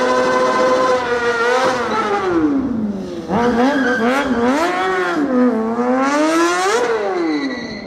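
Sport motorcycle engine revving hard and held at high revs while the bike is ridden on its back wheel. The pitch rises and falls as the throttle is worked, in two long runs with a brief drop about three seconds in.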